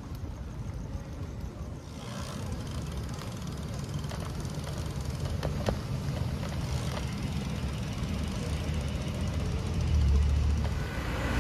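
City street traffic: motor vehicles passing on rain-wet pavement, a steady low rumble with tyre noise that grows louder toward the end.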